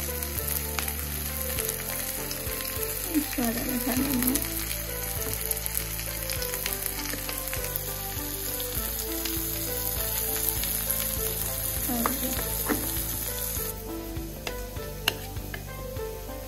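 Chopped onions and green chillies sizzling in hot oil in a kadhai, stirred with a metal spatula that scrapes and knocks against the pan now and then. The sizzle stops suddenly near the end.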